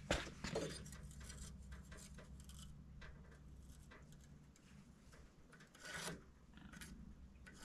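Faint scraping and rubbing of a speed square being positioned on a wooden brace board, with a few light taps, a little louder at first and a short bump about six seconds in.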